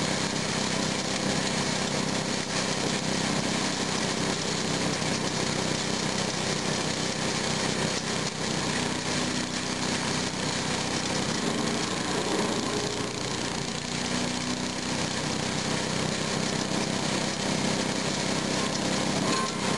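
Kemp chipper-shredder running steadily on its small gas engine, a dense even machine noise while branches are fed into the hopper.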